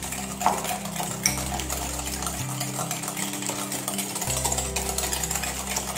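Wire hand whisk beating egg batter in a glass bowl in fast, steady strokes, with two sharper clinks against the bowl about half a second and a second and a quarter in. Background music with a steady bass line plays under it.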